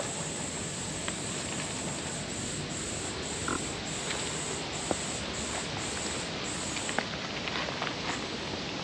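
High-pitched cicada buzz, steady at first, then breaking into pulses about two a second, and stopping about seven seconds in, over a steady outdoor hiss with a few faint clicks.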